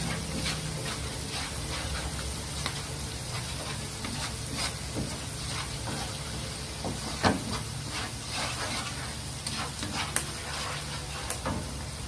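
Sliced green beans stir-frying in oil in a nonstick pan: steady sizzling, with a wooden spatula scraping and tapping against the pan at irregular strokes, one louder knock about seven seconds in.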